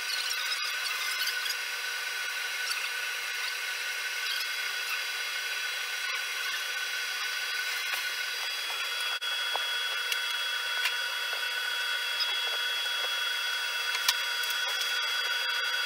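Router on a Maslow CNC sled running while the machine cuts its calibration pattern into plywood, together with a shop dust collector: a steady high whine made of several held tones, with a few light clicks.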